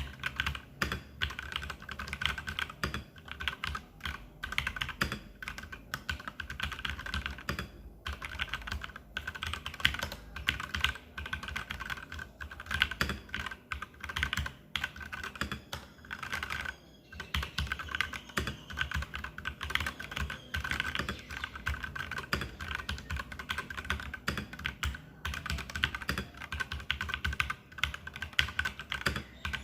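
Continuous fast typing on a TM680 mechanical keyboard with lubed Gateron Red linear switches and PBT XDA-profile keycaps, a dense, irregular stream of keystroke clacks with a brief pause about halfway through.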